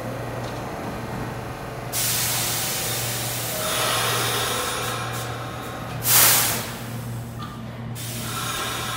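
Compressed air hissing from a stopped New York City subway train: a sudden hiss about two seconds in that slowly fades, then a shorter, louder blast of air about six seconds in, with the doors shut and the train about to pull out. A steady low electrical hum runs underneath.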